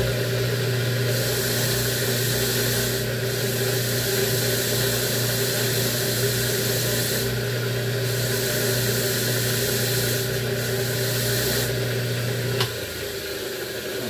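Motor-driven wire brush wheel spinning with a steady motor hum while a steel blender cutter shaft is pressed against it, giving a scraping hiss that comes and goes as the part is held to the brush, scrubbing dried food residue off it. Near the end the motor is switched off and the hum stops.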